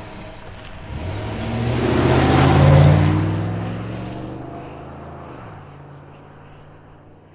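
Cinematic logo sound effect: a rushing whoosh over a low drone, swelling to a peak about three seconds in, then fading slowly away.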